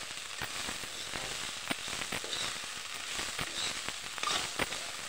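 Cubed potatoes and cabbage-leaf greens sizzling in hot oil in a kadhai while being stirred with a metal spoon, with scattered clicks and scrapes of the spoon against the pan.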